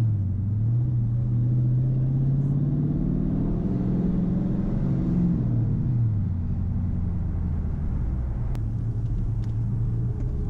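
Straight-piped Dodge Challenger R/T's 5.7-litre HEMI V8, heard from inside the cabin while driving slowly. The exhaust note rises gently in pitch over the first few seconds as the car speeds up. About six seconds in it drops as the throttle is lifted, settling into a lower steady drone while the car slows.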